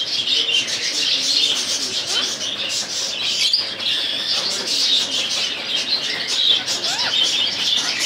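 Steady chatter of many small birds chirping together, with one short rising call near the end.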